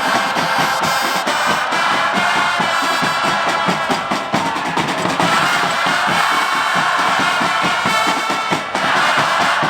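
Football supporters' terrace chant: a large crowd of fans singing together over a steady beat of bass drums.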